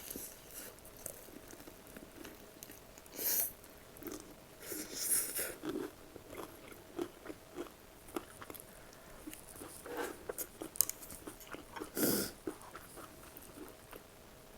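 Close-miked eating: food bitten and chewed, with small wet clicks and louder crisp crunches about three seconds in, around five seconds and about twelve seconds in.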